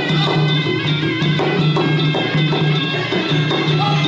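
Traditional Khmer boxing music: a reed pipe playing a sustained melody over hand drums and small finger cymbals, in a steady, repeating rhythm.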